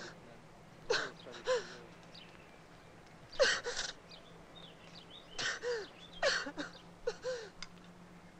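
A man sobbing: short gasping, breathy sobs with brief broken cries, about six in all, in clusters with pauses between.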